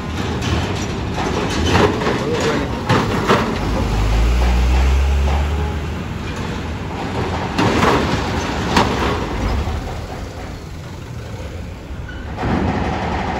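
Trucks driving off a ferry over the steel ramp: engine rumble and tyre noise, with repeated metallic clanks as the wheels cross the ramp plates and joints. A heavy low rumble swells about four to six seconds in as a truck passes close.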